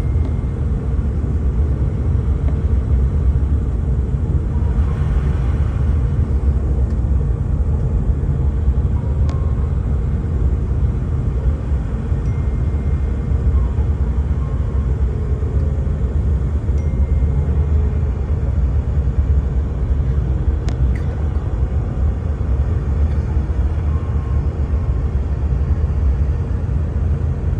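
Steady low rumble of a CRJ-1000 airliner in flight on approach, with no change in level throughout.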